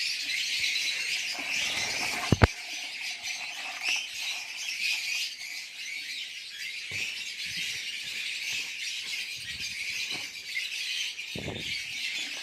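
A flock of caged lovebirds chattering with constant high, shrill chirps. There is a sharp click a little over two seconds in and a few soft knocks later.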